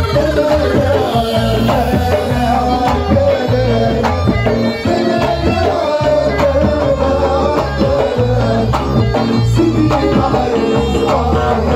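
Live Tunisian mezoued music: a mizwad bagpipe plays a continuous wavering melody over a steady beat from several bendir frame drums.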